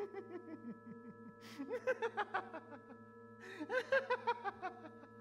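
A person laughing in three bursts of quick chuckles over a steady drone of several held tones.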